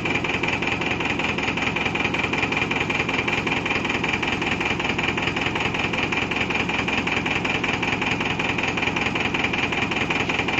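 A truck engine idling steadily with a fast, even pulse.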